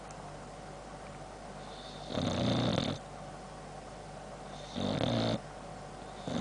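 Boxer dog snoring: two snores of about a second each, roughly two and a half seconds apart, with a third beginning near the end.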